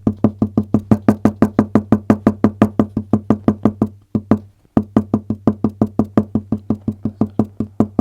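Rapid, even tapping from a restlessly tapping leg, about six knocks a second, with a short pause about four seconds in, over a low steady hum.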